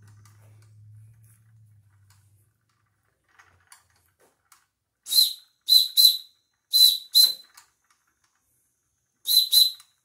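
Steam whistle on a Wilesco D24 toy steam engine's boiler, blown in seven short, shrill toots with a hiss of steam: one, then three quick pairs. Each blast draws steam off the boiler while the engine keeps running.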